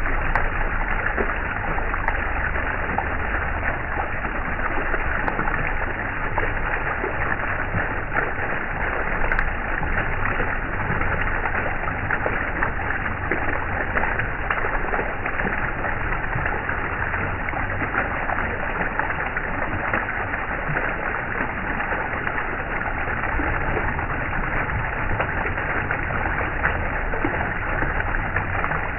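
Steady, even rushing of flowing water, like a stream or brook, with no change in level.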